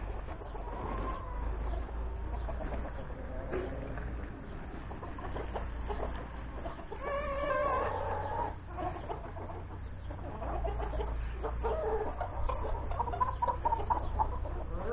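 A flock of chickens clucking, with short calls scattered throughout and a louder, longer call about seven seconds in.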